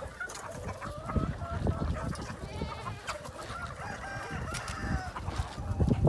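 A large flock of free-range chickens and roosters clucking and calling, many voices overlapping.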